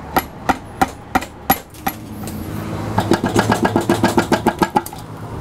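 Outboard lower unit being tapped to break it loose from the midsection once its bolts are out: a string of sharp knocks a few tenths of a second apart, then, after a short pause, a faster run of knocks, about six a second, a little past halfway.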